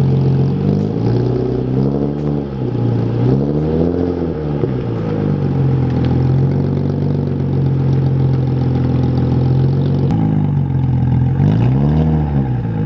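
Nissan 350Z's VQ35 V6 engine pulling on the road, running steadily with the revs rising and falling three times: twice in the first five seconds and once again near the end.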